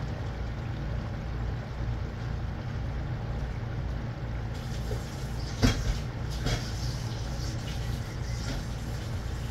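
Taro curry simmering and bubbling in a pot over a steady low hum, with a sharp knock about halfway through and a fainter one a second later.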